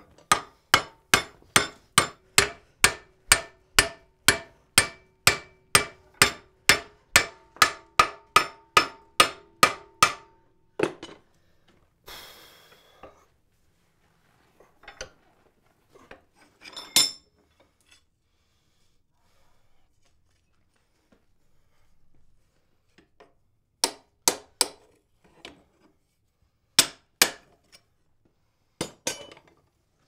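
Blacksmith's hammer striking wrought iron on an anvil: a fast, even run of about three blows a second for some ten seconds, the anvil ringing under them. Then a short hiss, and scattered single blows and small clusters of two or three strikes.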